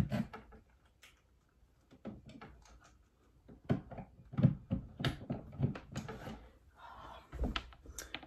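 Irregular knocks, clicks and rustles of objects being handled and set down, with a heavier low thump about seven and a half seconds in.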